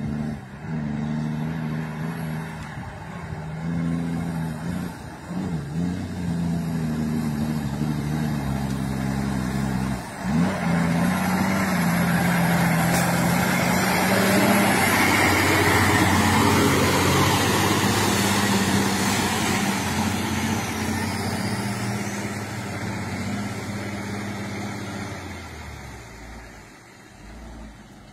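Heavy tanker tractor-trailer's diesel engine pulling through a flooded mud track, its note dropping and breaking off briefly about ten seconds in. It grows loud, with water and mud splashing from the wheels, as the truck passes close, then fades as it moves away.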